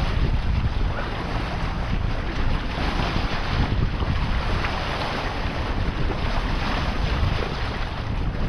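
Wind buffeting the microphone, with water rushing along the hull of a sailboat under sail: a steady, uneven noise.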